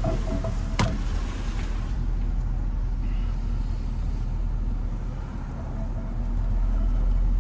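Steady low engine and road noise heard from inside a moving car's cabin, with one sharp click about a second in. The noise drops slightly past the middle, then rises again near the end.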